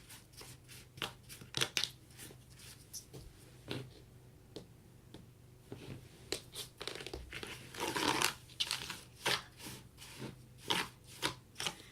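Kinetic sand being stirred and mixed in a container: irregular crunching, scraping strokes, with a longer scrape about eight seconds in.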